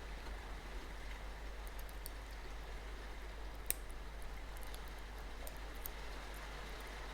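Faint, sparse clicks of a lock pick working the pins of a lock cylinder, with one sharper click a little over halfway through, over a steady hiss.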